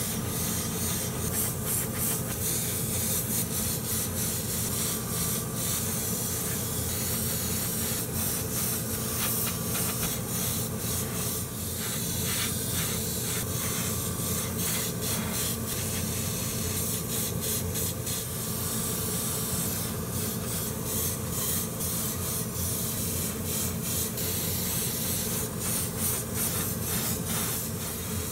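Gravity-feed airbrush spraying paint onto small plastic model parts: a steady hiss of air and paint, cut into many short bursts by the trigger, over a steady low hum.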